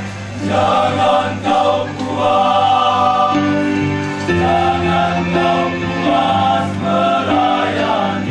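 Male choir singing a sacred song in several-part harmony, the voices moving together from chord to chord.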